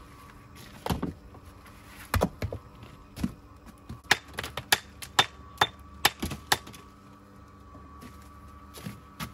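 Sharp knocks of a hand tool striking stone, about a dozen in all: scattered at first, then a quick run of about three a second in the middle, then two more near the end.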